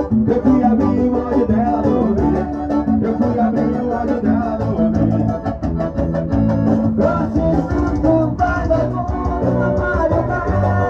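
Dance music with guitar, bass and a singing voice, played loud with a steady beat.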